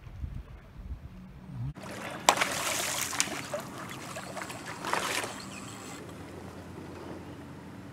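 Wind buffeting the microphone for about the first two seconds, then water splashing and sloshing as a hooked stingray thrashes at the surface, with sharp splashes about two, three and five seconds in, settling to a quieter wash near the end.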